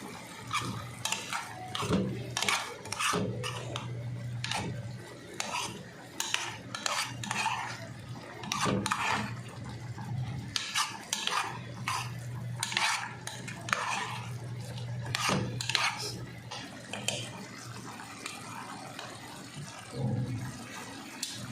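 A utensil stirring and scraping in a cooking pan, with frequent irregular clinks against the pan, over a steady low hum.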